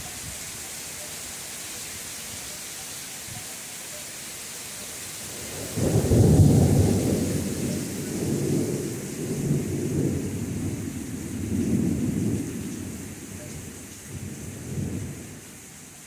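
Steady hiss of heavy rain. About six seconds in, a sudden clap of thunder breaks in and rolls on as a deep rumble in several swells for about nine seconds, fading near the end.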